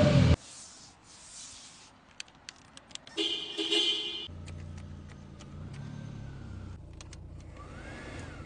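Clicks of switches inside a Lada car, then a loud tone about a second long some three seconds in. After that the engine idles with a low, steady hum.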